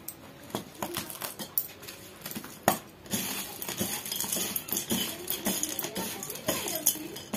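Fingers mixing crunchy fried namkeen mixture with chopped onion and green chilli in a small steel bowl: irregular crisp rustles and light clicks against the steel, busier from about three seconds in.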